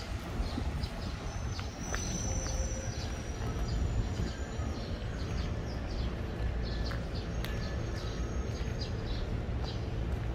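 Footsteps crunching on gravel at a walking pace, about two short crunches a second, over a steady low rumble.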